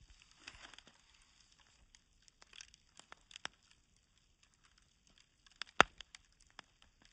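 Wood fire crackling with scattered small pops, and one sharp, louder pop about six seconds in.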